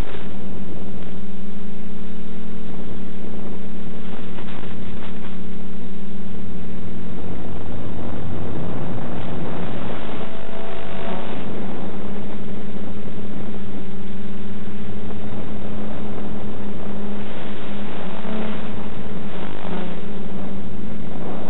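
Quadcopter's DJI E300 2212 920kv motors and 9x4 propellers humming steadily in flight, with a constant static hiss over the hum. The hiss swells near the end as the FPV video signal breaks up.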